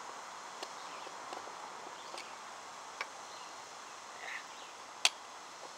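Faint scraping and handling noise with a few light clicks as a large screwdriver works the recoil pad screws out of a Mossberg 500 shotgun stock, with one sharp metallic click about five seconds in.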